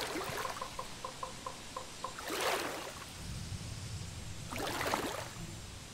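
Edited-in outro logo sound effect: a quick run of soft ticks, about four a second, then two whooshes over a low rumble.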